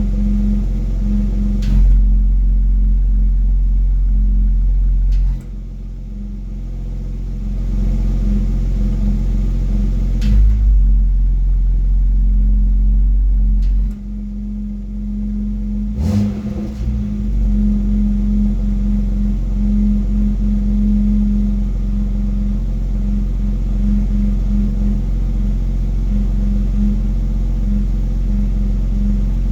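BMW X3 M running with the engine at idle, with a droning, pulsing hum and rattle from the exhaust that comes and goes. It is an unwanted exhaust hum that stops when the accelerator is pressed lightly without revving. The deep rumble underneath drops and returns a few times.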